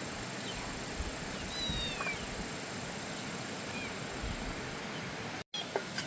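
Several short, faint, high-pitched animal calls, each falling in pitch, over a steady hiss. The sound cuts out briefly near the end, followed by a click.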